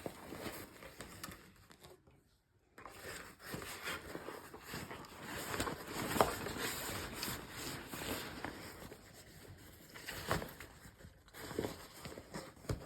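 Fabric backpack being handled and packed: irregular rustling and crinkling of the bag with scattered small clicks and knocks, briefly pausing about two seconds in, then busier.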